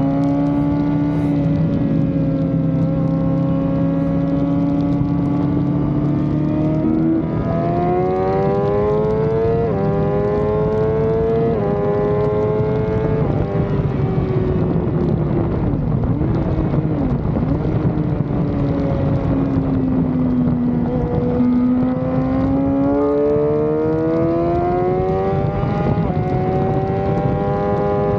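Sport bike engine heard from onboard at track speed: it revs up through the gears with quick upshifts about 7, 10, 12 and 13 seconds in, the pitch dropping at each shift, then eases off with the revs falling, and pulls hard again with another upshift near the end. Wind rush runs under it.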